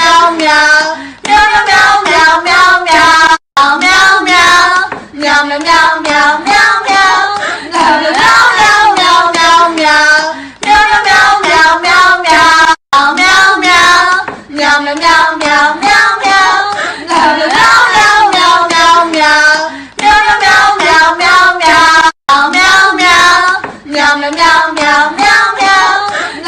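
Novelty 'meow meow' song: a high, childlike voice singing meow syllables to a tune in short repeated phrases over a steady beat, with three brief dropouts.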